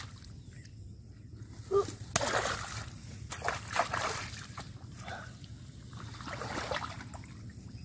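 Bare feet wading and splashing through shallow muddy water, several separate splashes and sloshes.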